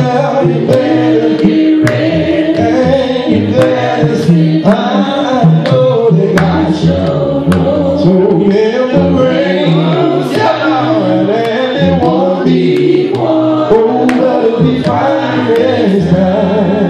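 Gospel singing: a man's voice over a beat of sharp, regular percussive hits.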